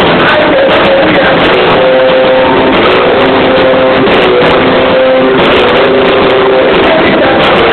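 Live rock band playing loud, held melody notes over a dense, distorted wash of sound, recorded overloaded so that it comes across harsh and roaring.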